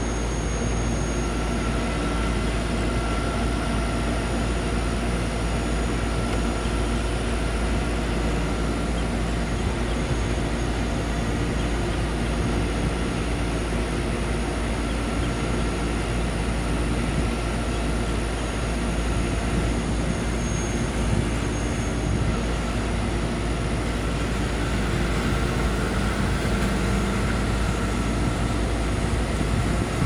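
A heavy rotator tow truck's diesel engine running steadily, an even drone that does not change.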